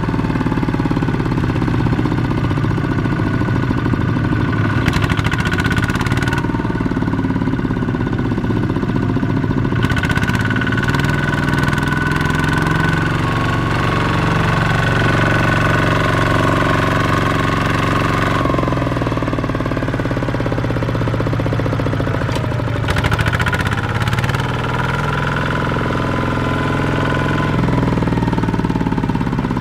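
Kubota ZT155 single-cylinder diesel engine on a two-wheel walking tractor running under load as it drags a loaded trailer through deep mud. Its note shifts up and down a few times, with a marked change about two-thirds of the way through.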